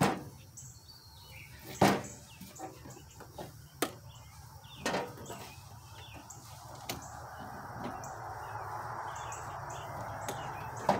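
A few sharp knocks and clicks of handling, with birds chirping in the background. From about six seconds in a steady rushing noise rises slowly.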